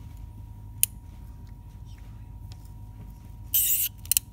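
Ratchet and 12 mm socket working a glow plug loose on a Toyota 1KZ-TE diesel: a single click about a second in and a short rasp near the end, over a steady low hum.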